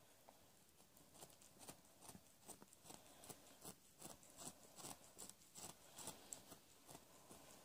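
Faint wet clicks and smacks, about two to three a second, from newborn kittens suckling at their mother's teats.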